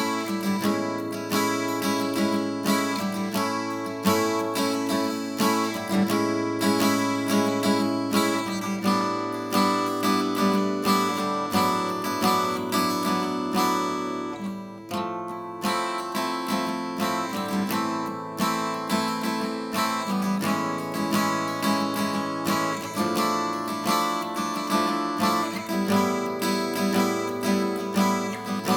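Vintage Japanese steel-string acoustic guitar being played in strummed chords, with a brief lull about fifteen seconds in.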